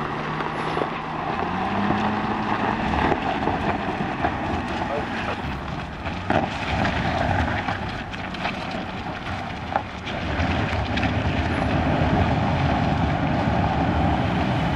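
Land Rover Defender engine pulling under load as it climbs a rutted dirt and gravel track in rock mode. The revs rise about two seconds in, there are two sharp knocks from the wheels and stones, and it gets louder after about ten seconds.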